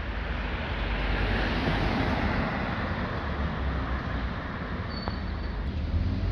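Scania CN280UB city bus driving by, its engine rumbling under road and tyre noise that swells about a second in and eases off again.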